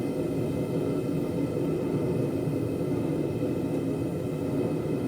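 A steady low roar, even and unbroken, with a faint hum of steady tones above it and no hammer blows.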